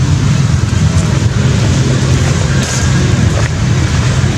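A loud, steady low rumble of a running engine.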